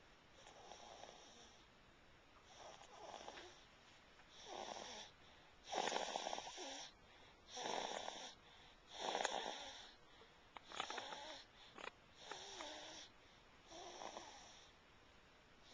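Snoring in slow, regular breaths, about one every one and a half seconds, the loudest about halfway through.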